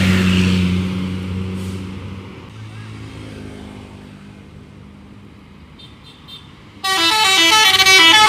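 A bus engine drones and fades away over the first two seconds. About seven seconds in, a bus's 'telolet' multi-tone musical air horn plays a quick stepped tune for about a second and a half.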